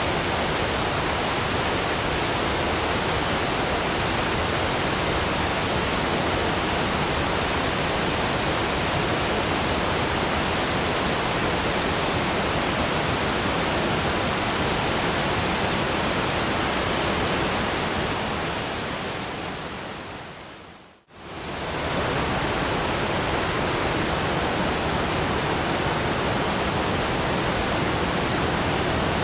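Steady, even hiss of a relaxation noise track, billed as brown noise with waterfall sound. About two-thirds of the way through it fades out over a few seconds to a brief near-silence, then quickly swells back to full level, like a loop seam.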